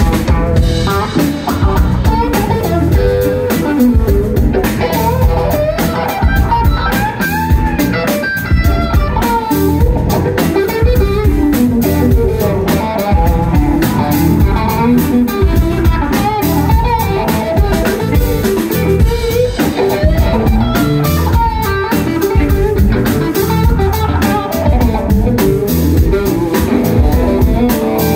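Live instrumental rock band playing loudly: two electric guitars trading a wandering lead line over electric bass and a drum kit keeping a steady beat.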